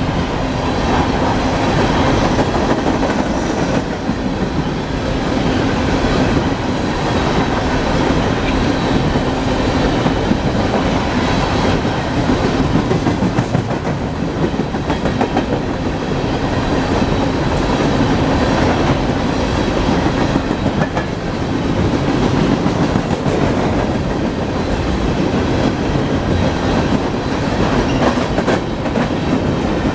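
BNSF coal train cars rolling past, a steady rumble of wheels on rail with clickety-clack over the rail joints.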